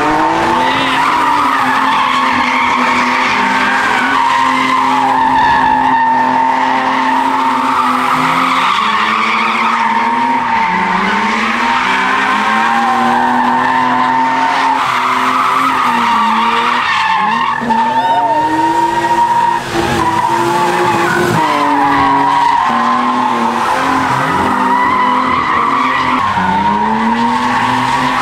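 BMW E36 coupe drifting in circles: the engine revs up and down over and over while the rear tyres squeal without a break.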